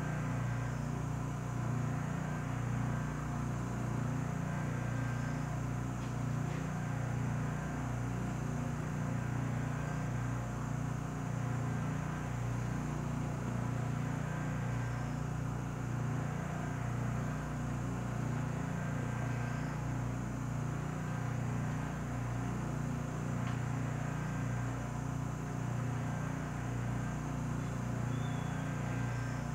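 Steady low machine hum of the SST 2200 Turbo vacuum furnace running, with its vacuum pump holding the chamber under vacuum during the cool-down segment of a process.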